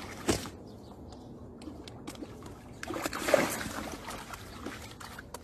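Water lapping at a rocky shore, with a louder splash about three seconds in as a cat paws into the shallow water.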